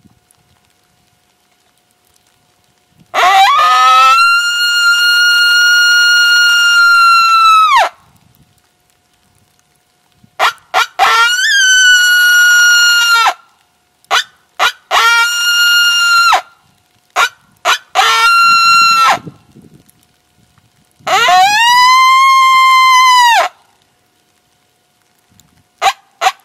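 A coyote howler call blown by a hunter to imitate coyote howls: a long held howl about three seconds in, then a run of shorter howls and yips, and another long, lower howl near the end. It is meant to get the coyotes' attention and draw them in.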